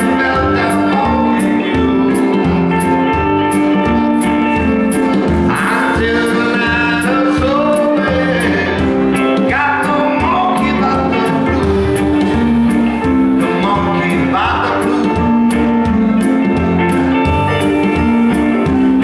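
Live blues band playing: electric guitar, electric bass, drum kit with a steady cymbal beat, and keyboard.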